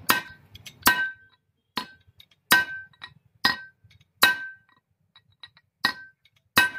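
Steel hammer striking a punch set against the nut on a tractor's splined axle shaft: eight sharp metallic clinks with a brief ring, a little under a second apart, with a short pause before the last two.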